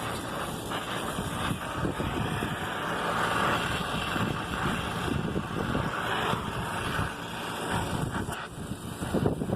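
Brazing torch burning with a steady hiss as copper refrigerant line joints on an AC compressor are brazed. The hiss swells louder for a few seconds in the middle.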